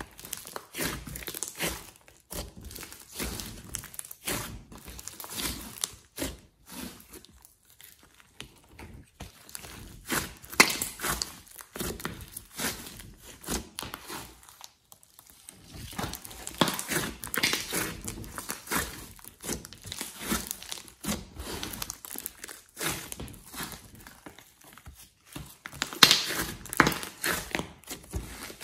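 Hands kneading and pressing a large batch of slime mixed with clay: sticky squishing and stretching with many small clicks and crackles as air pockets break, coming in uneven bursts that are loudest about ten seconds in and again near the end.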